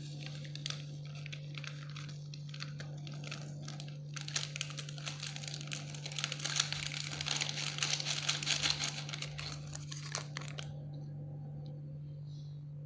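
Paper jelly-powder sachet crinkling as it is tipped and handled to pour the powder into a pan. Dense crackling starts about four seconds in and lasts about six seconds, with a few lighter crinkles before it, over a steady low hum.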